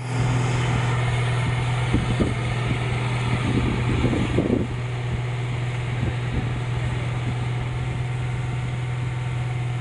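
Heavy diesel engine running at a steady speed, a constant low hum with machinery noise over it. A few brief faint voice-like sounds come around the middle.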